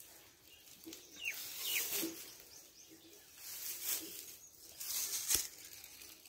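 Rustling and scuffing of dry straw and dirt as goats move about, in several short swishes, with two brief high chirps just over a second in and a sharp click near the end.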